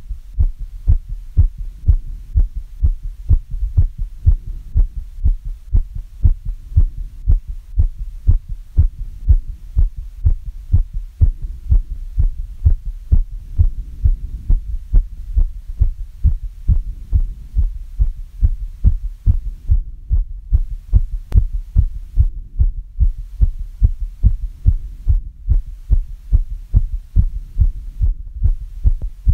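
A human heart beating steadily and regularly in the recovery after exercise, a rapid even train of low thuds, about three a second. A steady low hum lies underneath.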